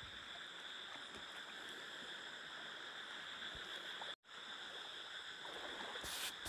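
Faint splashing and sloshing of feet wading through shallow water in a flooded field, over a steady high-pitched hiss. The sound cuts out for a split second about four seconds in.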